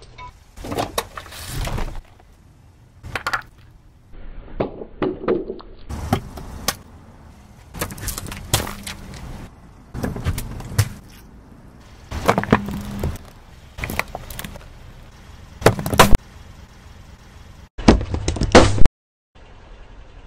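A car tyre rolling over and crushing a series of objects, among them a metal food can: a string of separate sharp cracks and crunches every second or two, broken by brief quiet gaps.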